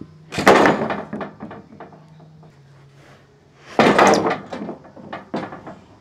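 Freshly sawn pine boards being pushed off the log and landing with two loud wooden clatters, about half a second in and about four seconds in. Each clatter is followed by a few smaller knocks as the boards settle.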